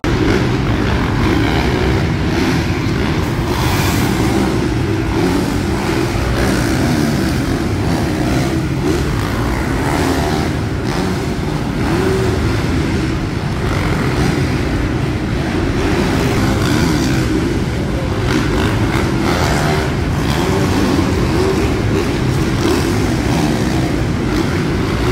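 Several motocross bikes riding a supercross track, their engines running and revving together in a steady loud din that carries through a large indoor arena.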